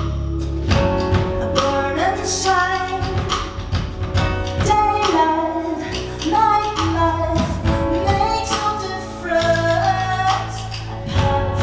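A woman singing a song with a live band: her voice carries the melody over held low bass notes that change every few seconds and regular drum and cymbal hits.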